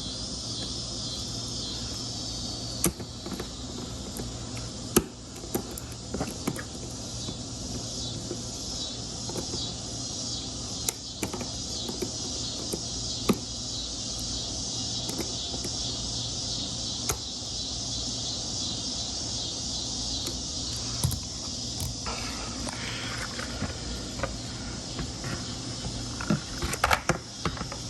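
Steady chirring of insects, with scattered sharp clicks and taps from hands working a plastic headlight wiring connector as it is pushed and tugged to unplug it.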